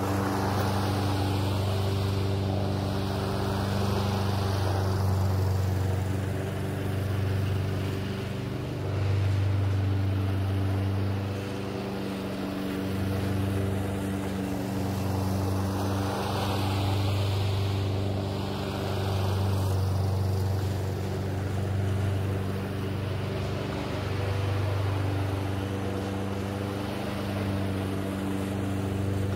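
Small petrol engine of lawn-care power equipment running steadily at a constant speed, its tone swelling and fading slightly as it moves.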